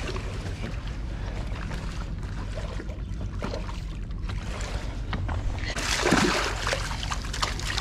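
A rig, a small shark, thrashing at the surface at the wharf's edge as it is grabbed by hand, with a sudden loud burst of splashing about three-quarters of the way in. Before that there is only a steady low background.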